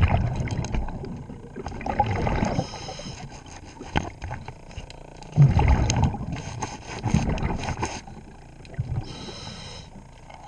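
A scuba diver breathing through a regulator underwater: bursts of exhaled bubbles rumbling past the microphone alternate with the hiss of the regulator on each inhale, with a few sharp clicks.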